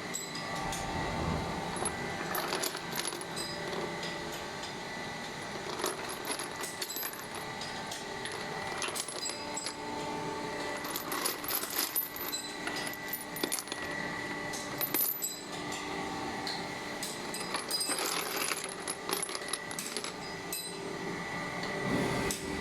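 Small machined metal parts clinking and chinking against each other over a steady machine tone.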